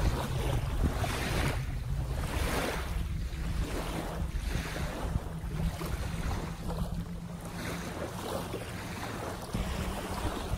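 Wind buffeting the microphone in a steady low rumble, with small lake waves lapping at the shore in swells of hiss that come and go about every second.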